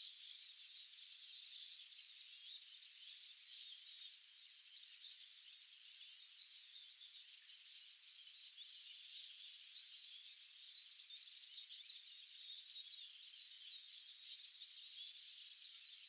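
Faint chorus of many songbirds, a dense, steady twittering with no single call standing out.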